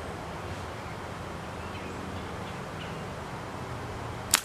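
A single sharp snap near the end as a slingshot with thin flat Theraband Blue bands is shot, sending a 9.5 mm steel ball, over quiet outdoor background.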